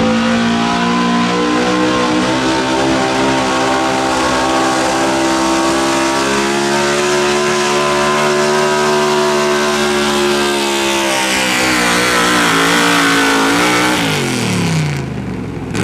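Pulling truck's gas engine running hard under load while dragging the weight-transfer sled, its pitch held high and easing up slightly, then sagging. Near the end the revs drop steeply as the throttle comes off.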